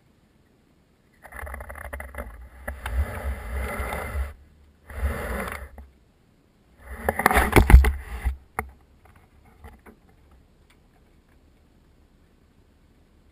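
A room fire burning inside a burn cell: three bursts of rumbling, crackling noise, the loudest about seven to eight seconds in, followed by a few sharp crackles.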